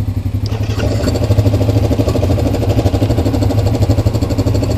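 Honda Rancher 420 ATV's single-cylinder engine running at low trail speed in four-wheel-drive low range, picking up throttle about a second in.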